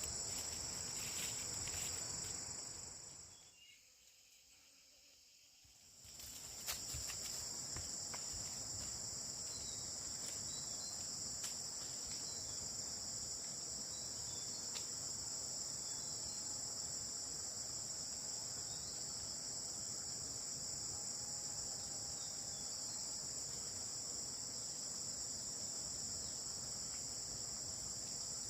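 A steady, high-pitched insect chorus that drops to near silence for a couple of seconds about four seconds in, then resumes.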